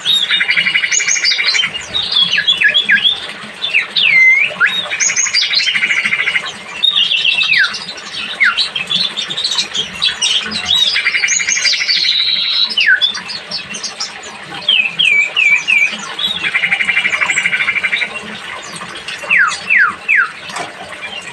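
A songbird singing a varied song of whistled notes and sweeping up-and-down glides, broken by a fast buzzy trill about a second and a half long that comes back roughly every five seconds.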